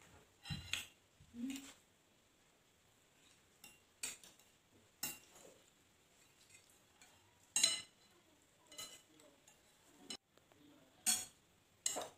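Metal spoons and forks clinking and scraping against ceramic plates while people eat, as scattered short clinks every second or two, the loudest about two-thirds of the way through and near the end.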